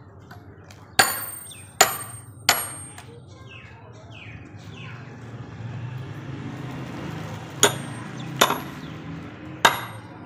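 Hammer blows on a metal wedge driven into a log to split firewood: sharp metallic strikes with a short ring, three in quick succession about a second in, then three more near the end.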